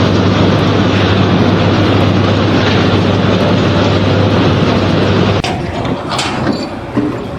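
Loud, steady mechanical rumble with a low hum, like heavy machinery or a vehicle running; it drops in level and turns uneven about five seconds in.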